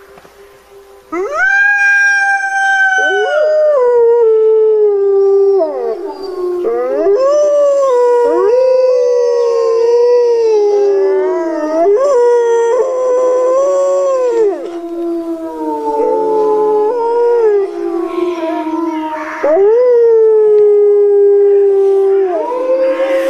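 Wolves howling in chorus: several long howls that glide up and down and overlap at different pitches, beginning about a second in.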